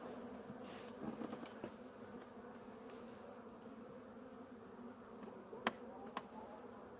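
Honeybee colony humming steadily in an open hive. Near the end there is a sharp click, then a lighter one.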